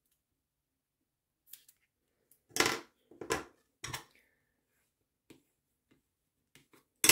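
Applying double-sided tape with scissors: a few short rasping snips and handling noises in the first half, then light ticks and a sharp click near the end.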